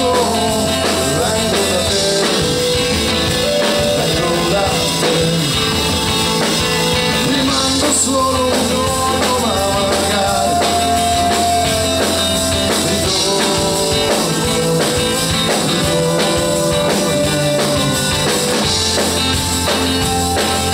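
Live rock band playing: electric guitar and drum kit, with a male singer's voice over them.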